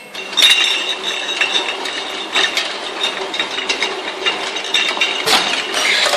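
Automatic bottle sticker labeling machine starting up about half a second in, then running steadily: conveyor and labeling mechanism clattering and ticking, glass bottles clinking against each other, with a steady high whine over it.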